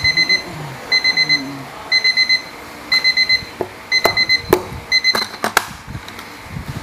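Electronic alarm beeping in quick groups of four, one group about every second. The beeping stops a little over four seconds in, among a few sharp clicks and knocks.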